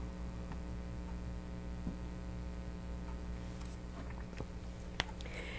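Steady electrical hum with faint ticks and scratches of a dry-erase marker writing on a whiteboard, and one sharp click about five seconds in.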